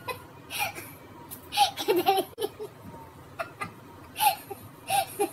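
A woman laughing hard in repeated short bursts.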